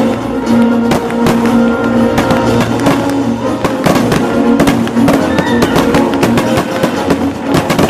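Background music with held notes under rapid, sharp percussive hits.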